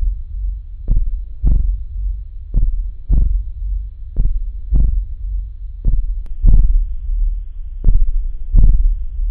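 Heartbeat sound effect: low double thumps, lub-dub, a pair about every one and a half to two seconds, slowing slightly near the end.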